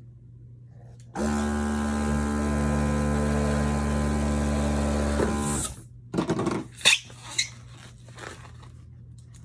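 Electric balloon inflator running steadily for about four and a half seconds, inflating a balloon, then switched off. A few short handling rustles and clicks follow.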